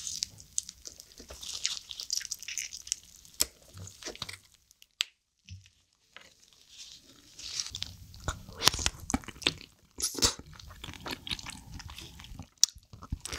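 Close-up eating of soy-sauce-marinated raw crab (ganjang gejang): wet chewing and crunching as the crab body and legs are bitten. There is a short pause about five seconds in, then denser, louder crunches.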